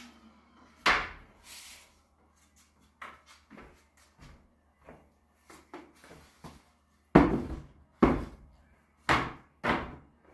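A series of sharp knocks and thuds from work being handled around a miter saw station. There is a loud one about a second in, a scatter of faint ticks, and four heavier knocks near the end, about a second apart.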